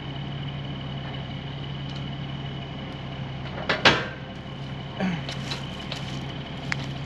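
Roll-off truck's engine and winch hydraulics running steadily under load, a low hum with a faint high whine over it. A sharp knock comes just before four seconds in and a smaller thump about a second later.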